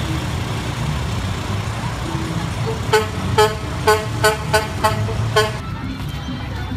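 A vehicle horn tooting seven short times in quick succession, over the steady low rumble of a truck's engine as a parade float rolls past.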